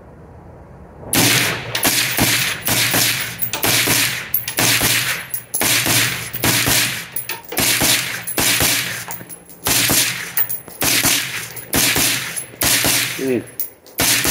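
Suppressed AR-15 rifle firing a long string of rapid shots, about two a second, starting about a second in.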